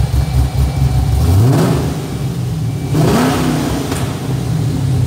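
Cammed 6.2-litre V8 of an HSV Clubsport idling, revved up briefly twice, about a second in and again about three seconds in, each time falling back to idle.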